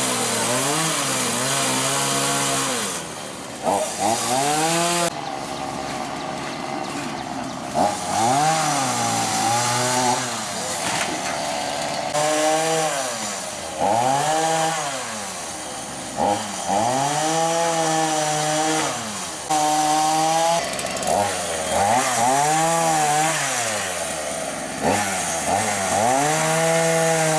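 Chainsaw running, its engine revving up and falling back again and again in repeated surges.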